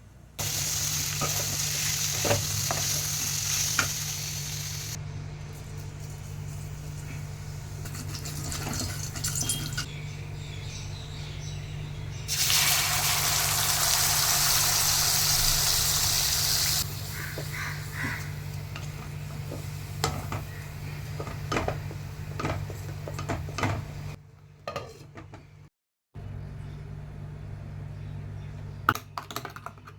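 Kitchen cooking sounds: stretches of steady hiss, the loudest from about twelve to seventeen seconds in, with scattered clinks and taps of utensils over a steady low hum. Several abrupt cuts break it up.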